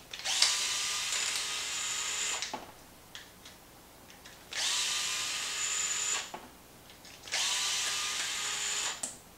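DeWalt 8-volt gyroscopic cordless screwdriver running in three bursts of about two seconds each, backing screws out of a plastic RC truck bulkhead.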